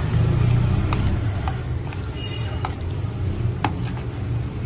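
A spoon clicking a few times against a plastic bowl while stirring chicken into a yogurt marinade, over a steady low rumble.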